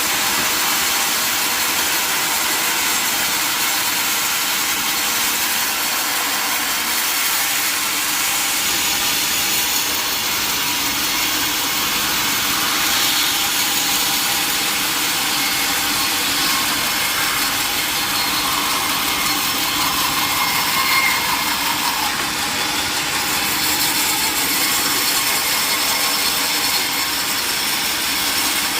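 A sawmill saw cutting steadily through a large mahogany log, the blade running in the wood throughout.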